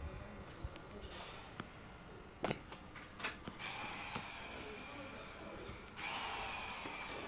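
A few sharp knocks, then a small motor starts up a few seconds in: a steady high whine with a hiss, growing louder near the end.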